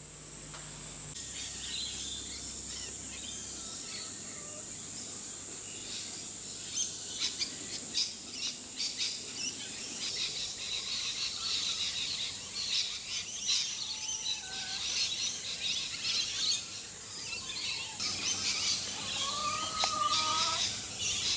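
Outdoor ambience: a steady high-pitched drone of insects with scattered bird chirps throughout, and a few clearer bird calls near the end.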